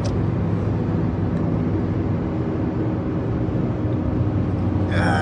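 Steady rumble of road and engine noise inside a moving car.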